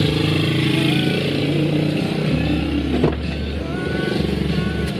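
Car engine and road noise heard inside the cabin, a steady low hum.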